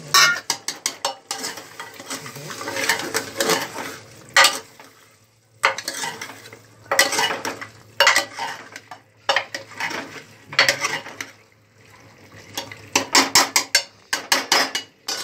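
A steel ladle scraping and clanking against an aluminium cooking pot as mutton curry is stirred with freshly added ginger-garlic paste. It comes in bursts of rapid clatter, with brief pauses about five and twelve seconds in.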